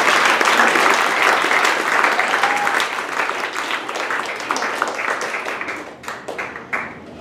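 Theatre audience applauding, loud at first and tapering off to a few scattered claps near the end.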